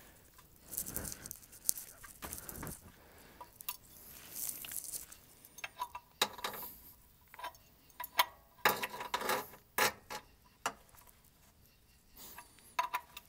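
Oil filter being tightened with a wrench: irregular quiet clicks, scrapes and short squeaks as its rubber gasket seats.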